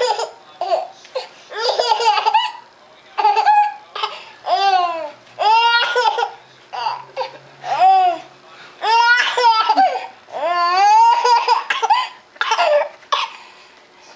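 A small child laughing in a string of about a dozen high-pitched bursts, many of them rising-and-falling squeals with short breaths between.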